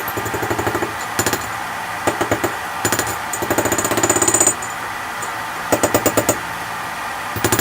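Rapid bursts of hammer strikes on steel, about eight blows a second in runs of half a second to a second, over a steady background noise.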